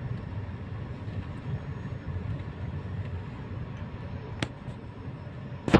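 Car running at low speed, heard from inside the cabin: a steady low engine and road rumble. A faint click comes about four seconds in, and a sharp, louder click comes near the end.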